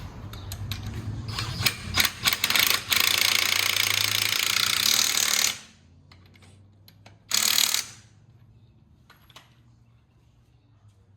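Impact wrench running on lug nuts: a rattling run of about four seconds, then a second short burst a couple of seconds later, snugging down the lugs that hold a rear wheel.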